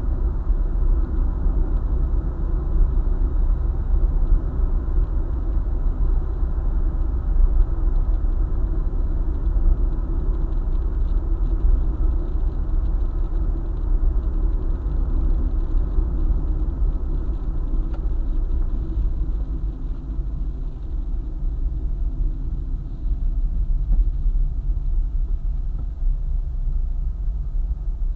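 Car driving along a highway: a steady low rumble of tyres and engine, easing off slightly about two-thirds through.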